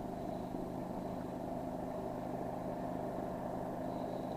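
Small inboard petrol engine of a wooden river boat running steadily under way.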